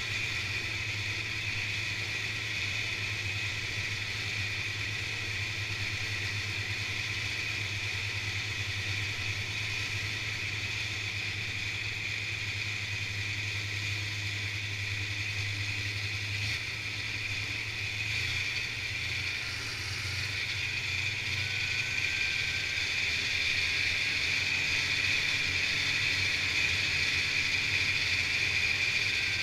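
Snowmobile engine and track running steadily as the sled rides along a trail. It grows a little louder about two-thirds of the way in.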